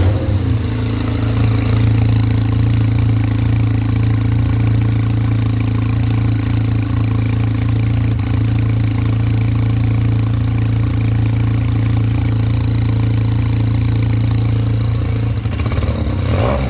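Motorcycle engine idling steadily through an exhaust fitted with a plug-in turbo whistle, which adds a thin steady high whistle over the engine's hum.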